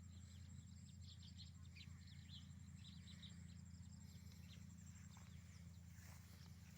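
Faint rural ambience: scattered short, high bird chirps over a steady, fast-pulsed insect trill and a low hum.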